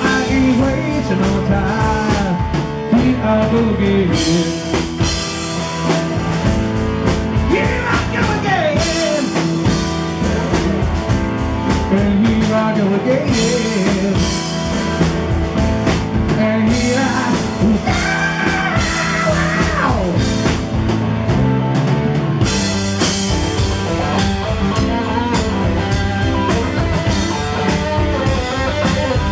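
Live rock band playing loud: an electric guitar carries bending lead lines over a steady drum kit beat.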